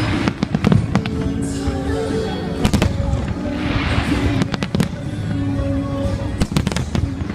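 Fireworks bursting in a rapid string of sharp bangs, with a spell of crackling near the middle, over music playing throughout.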